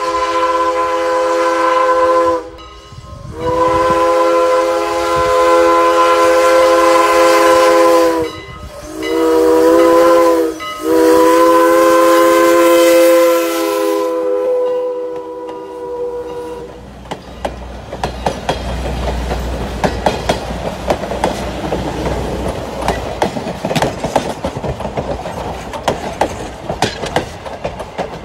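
Canadian National No. 89, a 2-6-0 steam locomotive, sounding its multi-note chime whistle in blasts: the end of one, a long blast, a short one, and a final long one that fades out. This fits the long-long-short-long grade-crossing signal. Then come a low rumble as the engine passes and a steady clickety-clack of the wooden passenger coaches' wheels over the rail joints.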